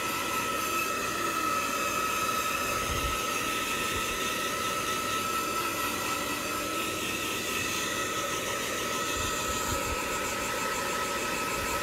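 Handheld hair dryer running steadily: a rushing airflow with a constant high whine.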